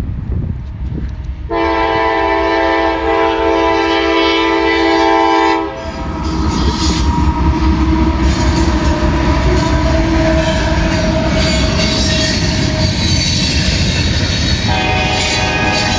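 CSX diesel freight locomotive horn sounding a long chord of several tones for about four seconds as a warning at the grade crossing. Then the locomotives pass with a deep engine rumble and wheel noise on the rails, and the horn sounds again near the end.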